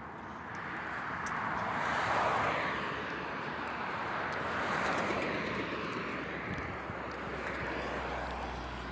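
Road traffic: cars passing with a rush of tyre and engine noise that swells twice, about two seconds in and again around five seconds in.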